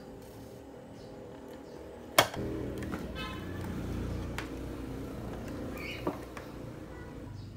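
Plastic sandwich maker being handled: a sharp click about two seconds in, as of its lid being shut, then lighter knocks as it is turned over, with a smaller click near the end.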